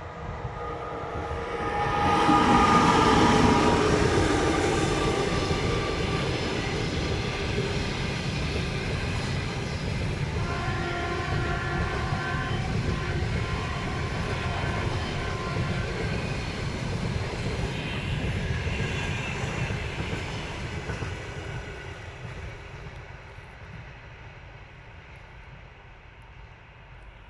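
Passenger train hauled by an EP2K electric locomotive passing at speed. It is loudest as the locomotive goes by a couple of seconds in, then the carriages rumble past steadily and the sound fades away near the end. A steady tone sounds over the rumble for several seconds midway.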